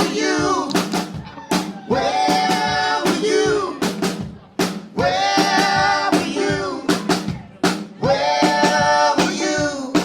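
Live rock band playing: drum kit hits, snare and rimshots, under phrases of long held notes that come in about every two to three seconds.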